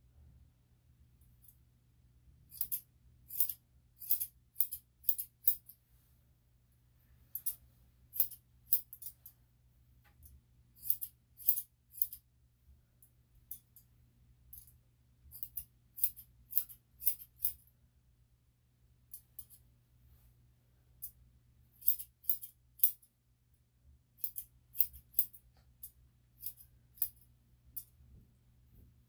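Grooming scissors snipping a dog's coat in quick runs of three to six crisp snips, about two a second, with short pauses between runs.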